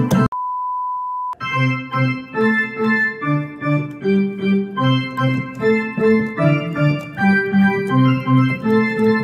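Digital piano played with both hands: evenly paced notes, a melody over low chords. Near the start a steady high beep lasts about a second.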